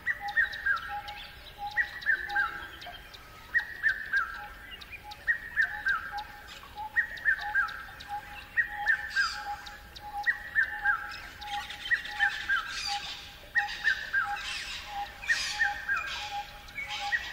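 Bird chirps in a short group of quick descending notes, repeating in an even pattern about every second and a half over a steady pulsing note. A few harsh, crow-like caws come in during the later part.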